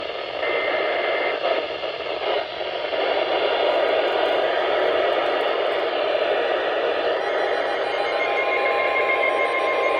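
Loud static hiss from a NOAA Weather Radio receiver on a weak, noisy signal. About eight seconds in, a steady high tone rises out of the static: the 1050 Hz weather-radio warning alert tone that announces an emergency alert.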